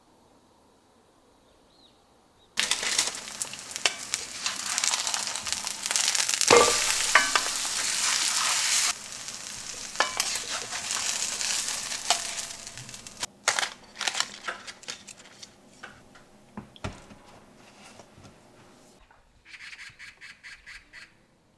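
Food frying in a hot pan, a loud sizzle that starts suddenly about two and a half seconds in, then dies down with scattered clicks of stirring and utensils.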